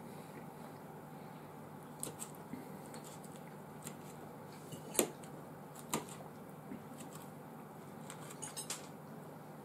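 A fork clicking and tapping against a plate while eating: a scatter of short, sharp clicks, the loudest about five seconds in and a quick cluster near the end.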